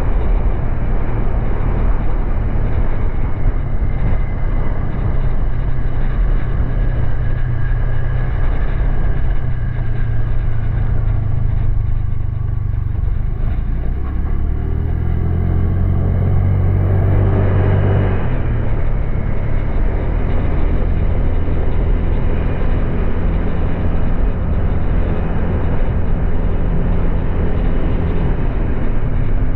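Honda Click 125i scooter's 125 cc single-cylinder engine running under way, with road and wind noise. About halfway through it eases off, then rises in pitch as the scooter speeds up again, and it settles back to a steady cruise.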